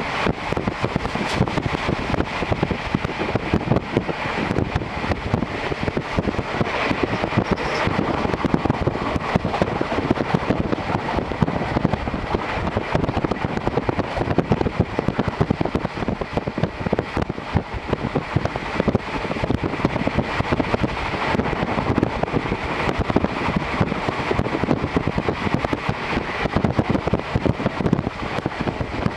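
Interior of a JR Hokkaido Series 711 electric train running at speed, heard through an open window. Wheels on the rails rumble and rattle steadily, with air rushing in.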